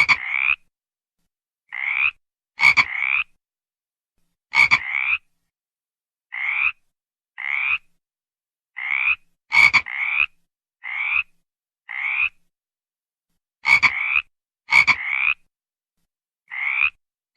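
A frog calling: short calls of about half a second, each rising a little in pitch, repeated every second or two and often in pairs, some opening with a sharp click.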